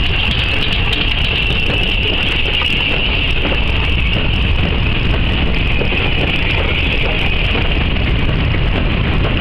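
LMS Black Five 4-6-0 steam locomotive No. 45407 and its coaches passing close by, a loud steady rumble with wheels clattering over the rail joints and a steady high hiss.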